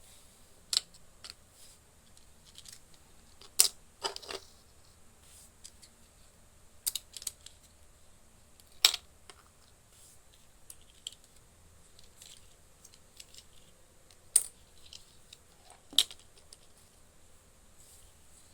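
Scattered sharp clicks and taps of small plastic toy kitchen pieces being handled and set down, a few seconds apart at irregular intervals.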